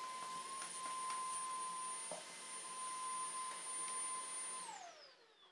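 Upright vacuum cleaner running with a steady whine, then switched off near the end, its motor winding down in a falling whine.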